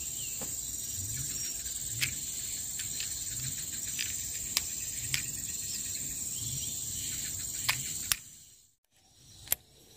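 Steady high-pitched trill of insects in the grass, with a few light plastic clicks as a phone is fitted into a neck-mount holder. The sound cuts off suddenly near the end.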